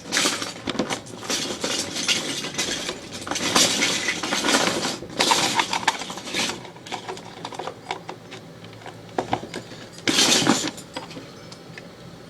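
Plastic Lego bricks clattering and clinking as hands rummage through a pile of pieces, busiest in the first half, with a louder rattle about ten seconds in.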